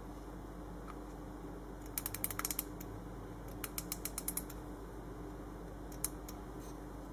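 Reuge pocket watch with music-box movement being wound by hand: two quick runs of small sharp ratchet clicks, about eight to ten in each, then a single click near the end.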